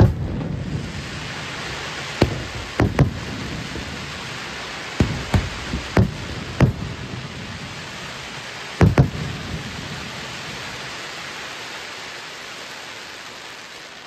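Aerial firework shells bursting: about ten sharp bangs in the first nine seconds, some in quick pairs, the loudest at the very start and about nine seconds in. Under them runs a steady rain-like hiss and crackle from the burning stars, which fades away near the end.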